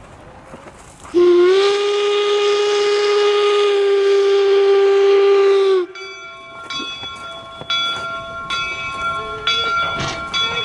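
The Jupiter 4-4-0 wood-burning steam locomotive sounds its steam whistle in one long blast of about five seconds. It starts about a second in with a slight upward slide in pitch, then holds steady and cuts off. Right after the whistle, the locomotive's bell rings steadily, about one stroke a second.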